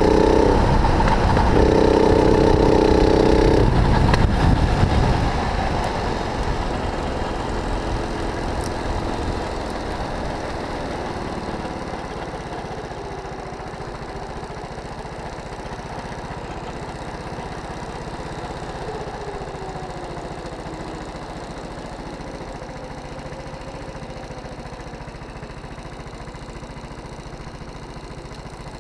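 A 270cc, 9 hp four-stroke rental kart engine pulling hard for the first few seconds, then backed off, its note dropping and fading steadily toward idle as the kart slows.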